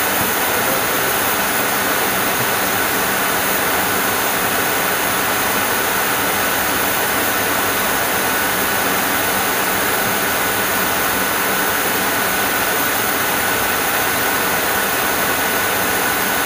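Steady in-flight flight-deck noise of an MD-80 jetliner: an even rush of airflow and jet engine noise heard inside the cockpit, with a thin steady high whine over it.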